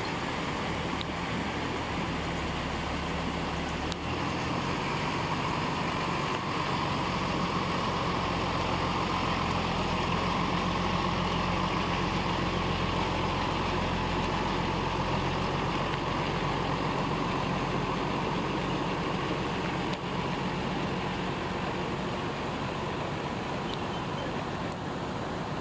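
Isuzu truck's diesel engine running as the loaded truck pulls through the creek and away over gravel; its note changes and gets stronger about four seconds in. A steady rushing noise runs underneath.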